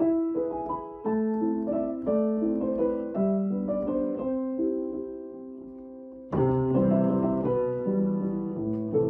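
Background piano music: a slow, gentle melody of ringing notes over chords, fading softer toward the middle, then a fuller, louder passage with deeper bass notes from about six seconds in.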